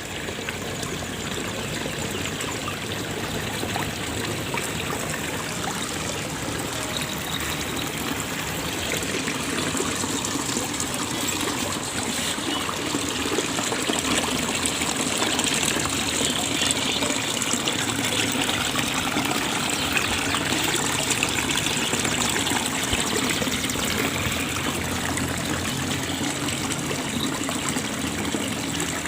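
Running water trickling steadily, like a small stream or water channel flowing.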